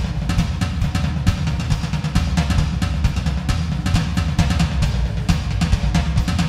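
Roland electronic drum kit played in a busy groove of many quick strokes, with a heavy, continuous low end under the hits.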